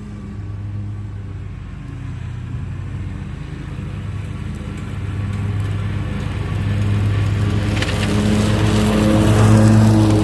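Commercial lawn mower engine running steadily, growing louder over the last few seconds.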